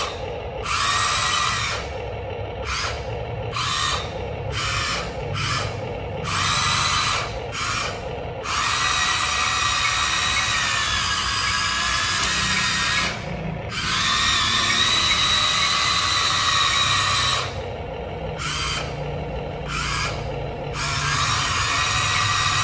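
Huina RC excavator's electric track motors whining through their gearboxes, switched on and off in many short bursts, then running for about four seconds at a time twice, with a few more short bursts near the end.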